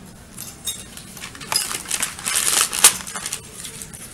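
Clattering and clinking of small objects with rustling at a table, a run of sharp clicks and knocks that grows busier and louder in the middle, with one sharp knock loudest of all.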